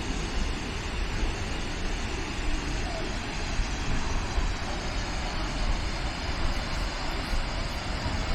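Steady roar of a large waterfall: a constant rushing noise with a heavy low rumble.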